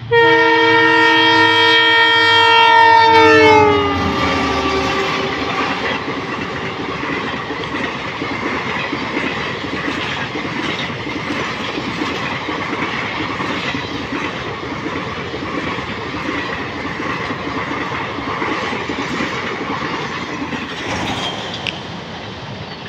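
Delhi–Bikaner Intercity Express passing at speed. The locomotive's horn blares for about four seconds and drops sharply in pitch as it goes by, followed by the steady rumble and wheel clatter of the coaches rolling past on the track.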